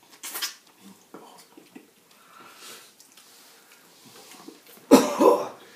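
Faint sniffing and eating noises, then a man coughs loudly about five seconds in.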